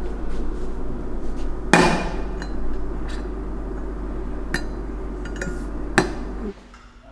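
Sharp knocks and metallic clinks from a small magnetic kitchen towel hanger being handled: three loud knocks, the loudest about two seconds in, with a few lighter clicks that ring briefly. A steady low hum runs underneath and cuts off suddenly near the end.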